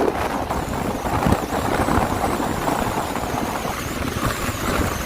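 Car driving on a wet road in the rain: steady engine and tyre noise.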